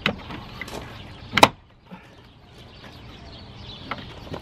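A door trim panel being pressed by hand onto a Ford E350 van door, its plastic push clips snapping into the door with sharp knocks: a small one at the start, the loudest about a second and a half in, and lighter ones near the end.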